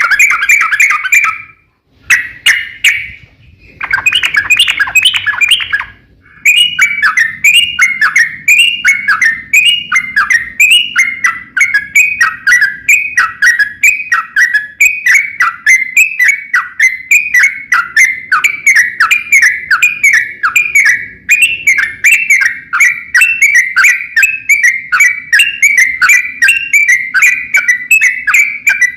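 Yellow-vented bulbul (trucukan) singing: a few short phrases, then from about six seconds in a long unbroken run of quick, repeated falling notes.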